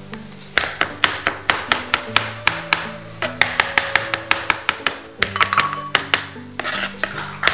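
Chef's knife chopping mushrooms on a plastic cutting board: quick runs of sharp taps, about five a second, broken by short pauses, over background music.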